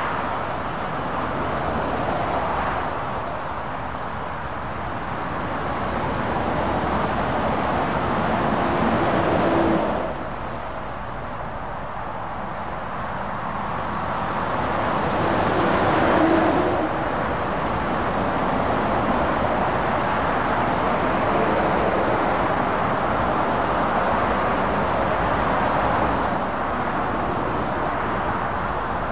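Road traffic noise from lorries and cars passing on a dual carriageway. It swells as vehicles go by, about ten and sixteen seconds in. A bird calls in short falling notes, in groups of three or four, every few seconds.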